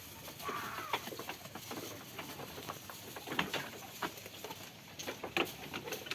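Farm animals moving about: many short scattered clicks and rustles, with a brief curved call about half a second in.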